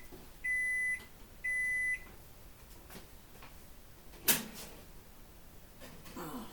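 Kitchen oven beeping twice, a high steady tone about half a second each, then a single sharp bang about four seconds in, with a softer clatter near the end.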